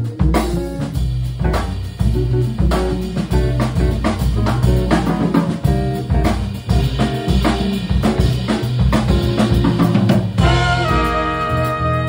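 Jazz combo: the drum kit and bass play a busy groove on their own, and the horn section of trumpet, trombone and saxophones comes in with held chords about ten and a half seconds in.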